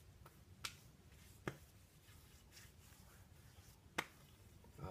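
Palms patting aftershave onto freshly shaved cheeks: a few short, sharp slaps, the clearest at about two-thirds of a second, a second and a half, and four seconds in, against near silence.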